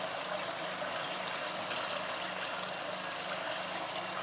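Steady rush of running water, with a faint low hum underneath that pulses at an even rate.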